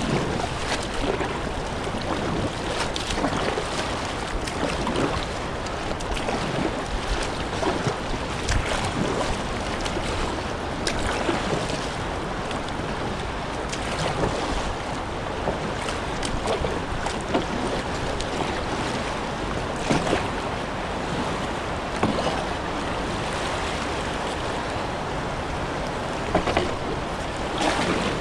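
River water rushing and splashing around a kayak as it is paddled, with frequent irregular paddle splashes and wind buffeting the microphone.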